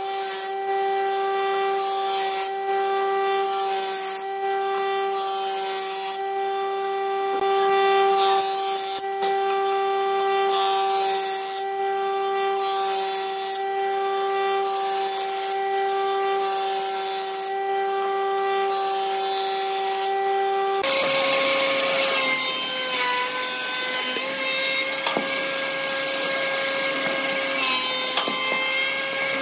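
Jointer running with a steady whine while a wooden beam is fed across its cutterhead, the cutting hiss swelling and fading every second or two. About two-thirds of the way through, the sound changes to a thickness planer running with a different whine as the beam feeds through it.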